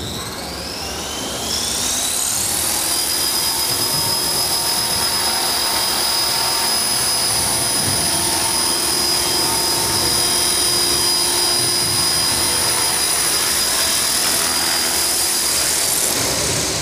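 Small RC helicopter's motor and rotor blades spooling up with a rising whine, then running at a steady high whine as it flies, and winding down near the end as it lands.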